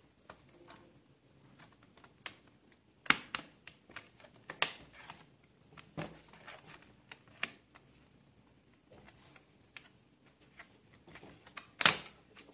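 Scattered plastic clicks and knocks as an Acer Aspire 4736Z laptop's hard-drive bay cover is handled and pulled at to get it off. The sharpest snaps come about three seconds in, again a second and a half later, and near the end.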